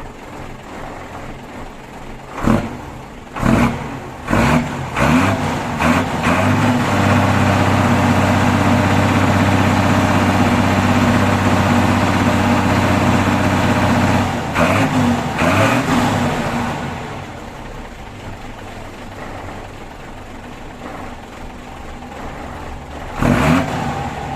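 Mitsubishi Fuso truck's diesel engine being warmed up from cold: revved in several quick blips, then held at high revs for about seven seconds, a few more blips, then back down to a steady idle, with one more quick rev near the end.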